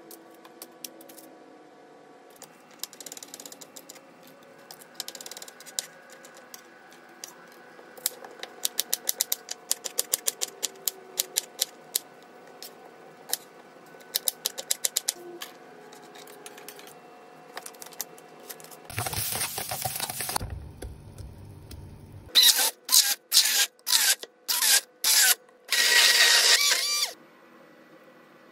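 Kitchen knife chopping onion on a wooden cutting board, a run of quick sharp taps. Toward the end comes a loud noisy stretch, then a row of loud short bursts that stop and start.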